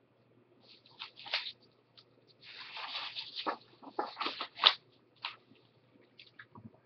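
Paper rustling and crackling as a picture book's page is handled and turned, in a string of short scrapes and crinkles with the loudest about four and a half seconds in.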